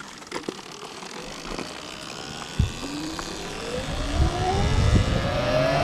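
Electric dirt bike pulling away: a short knock, then the motor whine rising steadily in pitch as it speeds up, with wind and road noise growing louder.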